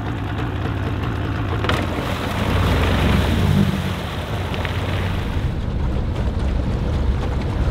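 Evinrude outboard motor running steadily, pushing a small boat across open water, with water rush and wind noise mixed in.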